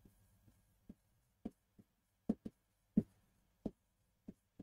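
Pen tip tapping and clicking on the glass of an interactive whiteboard during handwriting: about ten short, irregular clicks, the loudest two a little past two and three seconds in.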